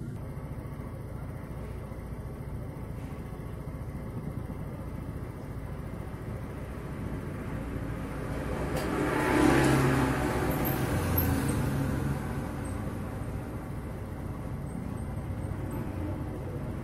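A motor vehicle passing by, building up, peaking and fading away over a few seconds about halfway through, over a steady low background rumble of traffic.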